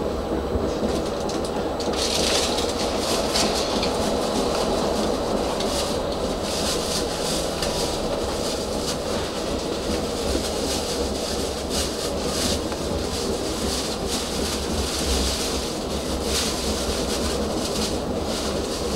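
Tram running along street track, heard from inside the car: a steady rumble of wheels and drive with frequent clicks of the wheels over the rails. There is a stretch of louder hissing about two seconds in.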